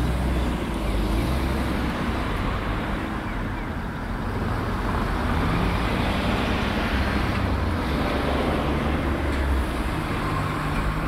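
Road traffic at a street intersection: motor vehicles' engines running, with tyre noise, a steady low rumble.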